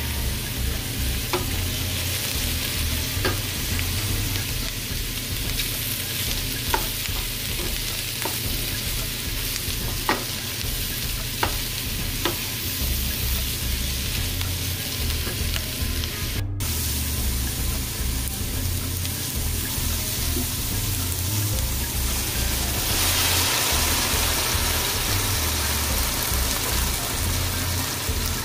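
Cabbage, mushrooms and carrots sizzling in a stainless steel skillet as a wooden spoon stirs them, with a few sharp knocks of the spoon against the pan in the first half. The sizzle breaks off for an instant just past the middle and grows louder near the end.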